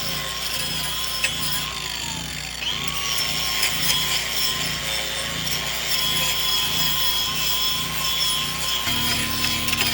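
A power tool running on wood with a steady motor whine that dips and recovers in pitch briefly a couple of seconds in. The low hum changes near the end.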